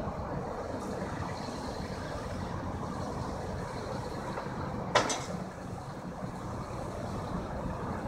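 Steady drone of the diesel engines on heavy tow trucks and an excavator running, with a single sharp clank about five seconds in.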